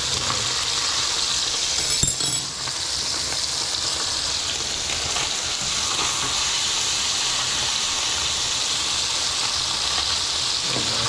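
Mutton snapper fillets sizzling steadily in butter in a cast iron skillet, with one sharp clink about two seconds in.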